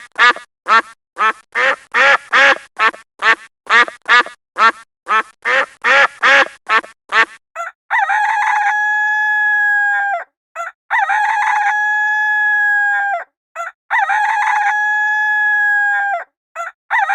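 A duck quacking rapidly, about three quacks a second, then a rooster crowing three times, each crow a few short notes ending in a long held note that drops off at the end.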